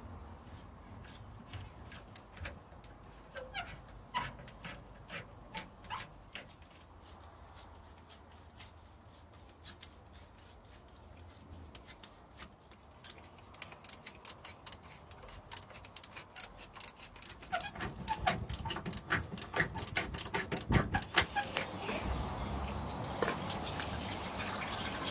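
Repeated sharp clicking of a screwdriver tightening worm-drive hose clamps on new radiator hoses, thickening into rapid clicking about halfway through. Near the end, a steady rush of water is poured from a kettle into the aluminium radiator.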